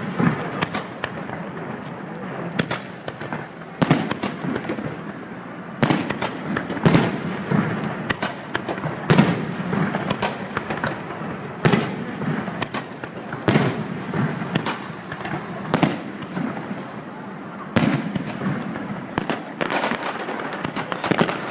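Fireworks display: shells bursting in a string of sharp bangs, one every second or two.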